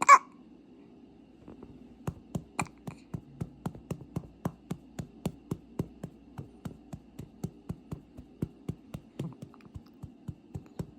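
A single sharp baby's hiccup right at the start. After it comes a steady, even run of soft taps or clicks, about three a second.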